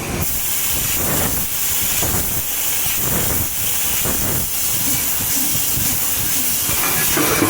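CNC laser cutting machine at work, a steady hiss of the cut and its assist gas with an uneven low rumble underneath.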